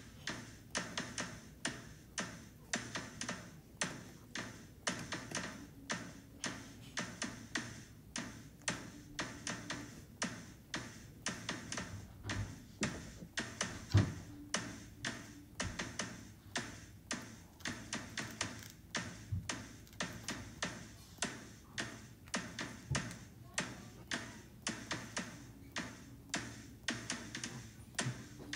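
Hand snips cutting through a metal microwave filter's mesh: a steady run of crisp snips, about two or three a second, with one louder knock about halfway through.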